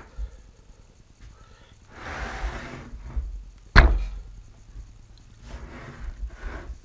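A heavy 10-inch three-jaw scroll lathe chuck being handled on a workbench: about a second of sliding and rubbing two seconds in, then one loud metal thunk just before four seconds as the chuck is turned over against the bench, followed by softer handling knocks.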